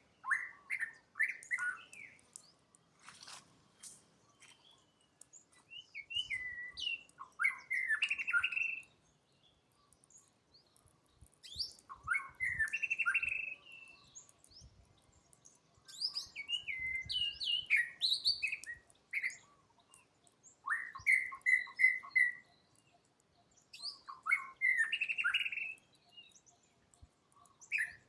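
High chirping calls in bursts of rapid notes, a cluster every few seconds with quiet gaps between.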